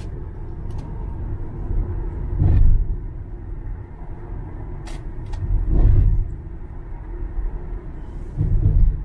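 Highway driving noise heard inside a car: a steady low rumble of tyres and engine that swells louder three times, with a couple of faint clicks about halfway through.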